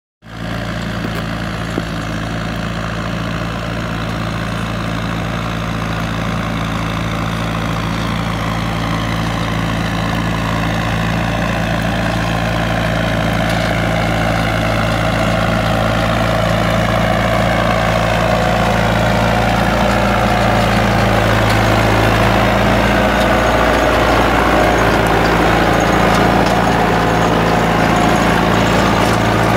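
New Holland 7630 tractor's diesel engine running steadily as it pulls a ten-row planter, growing gradually louder.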